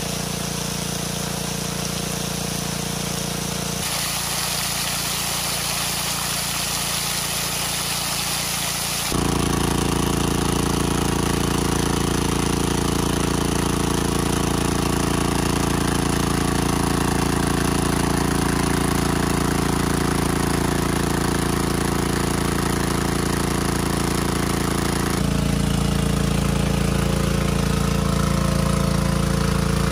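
Engine of a water pump running steadily. It shifts abruptly in loudness and tone a few times, growing louder about nine seconds in.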